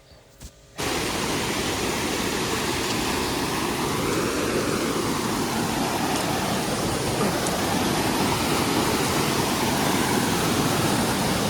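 Rushing water: a steady, full hiss that starts suddenly about a second in.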